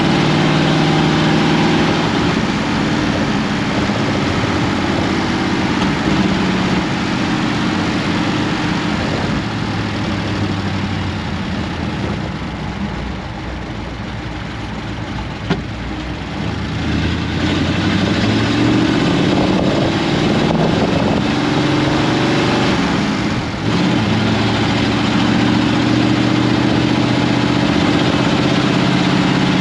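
Ford 59AB flathead V8 with straight pipes running under way, heard from inside the cab. The engine note eases off for a few seconds about halfway through, then climbs in pitch as it pulls again. It drops suddenly once, then holds steady near the end.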